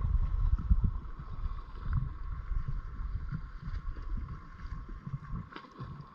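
Kayak on the water: wind rumbling unevenly on the microphone over a steady watery hiss, with a few faint knocks.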